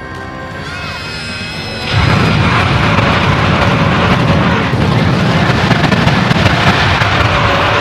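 Film music, then about two seconds in a loud, low, rumbling crash-like sound effect starts and runs for about six seconds before stopping near the end.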